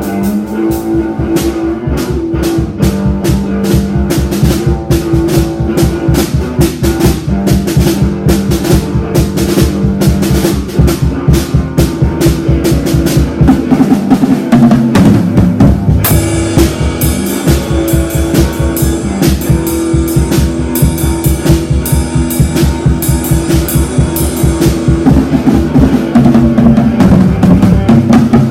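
Loud rock music: a drum kit plays a fast, steady beat under guitar and held low notes. About halfway through, the cymbals come in much brighter and the playing gets louder.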